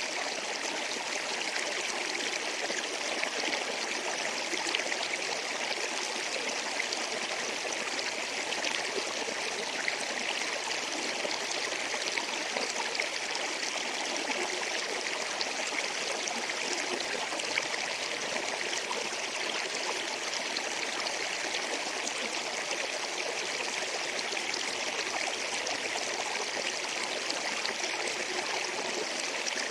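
River water flowing and rushing steadily, a continuous even wash of moving water with no breaks.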